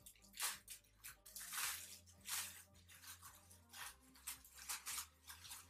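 A small plastic package crinkling and tearing as it is opened by hand, in a quick run of irregular crackles.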